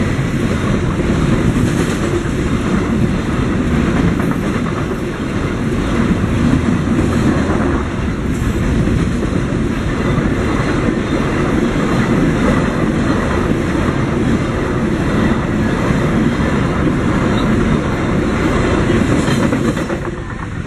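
Container freight train rolling across a level crossing, its wagon wheels clattering over the rails in a steady loud rumble that fades near the end as the train clears.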